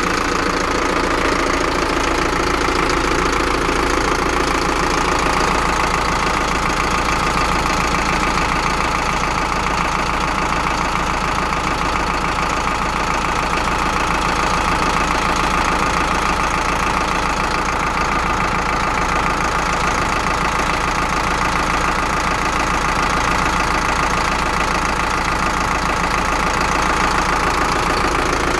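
Zetor Forterra 150 HD tractor's diesel engine running steadily at an even speed, heard close up beside and beneath the tractor.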